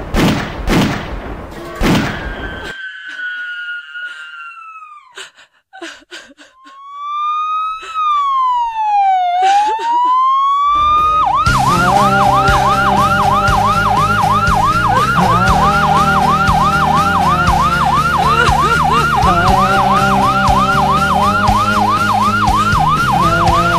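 A siren in a song's instrumental break. The band drops out after a falling tone and a slow siren wail glides up and down once; then the band comes back in with a fast yelping siren repeating about three times a second over the music.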